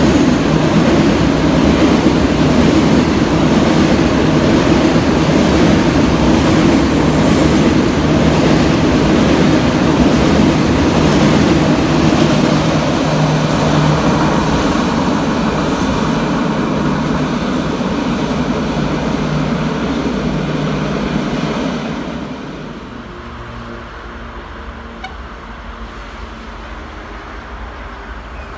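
Container freight train rolling past, a steady loud rumble of wagon wheels on the rails. Near the end the sound drops abruptly to a much quieter background.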